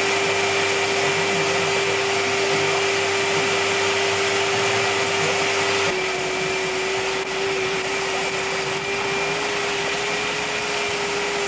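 Wet/dry shop vacuum running steadily with a constant motor whine, its hose drawing dust from the work on a plywood baffle plate; the low hum shifts slightly about six seconds in.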